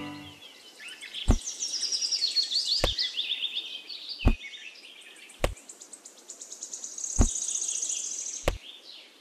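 Birds chirping and trilling in quick high runs, with six dull knocks about a second and a half apart as small white pebbles are set down one by one.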